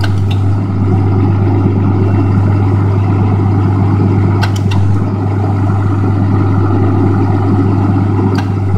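Cummins 6.7-litre inline-six turbo diesel with a 5-inch straight-piped exhaust, idling steadily with a deep even drone. A few light clicks sound over it.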